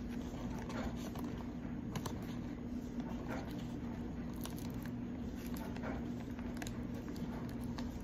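Scissors snipping through a salmon roe skein, with soft clicks and squishes about once a second, over a steady low hum.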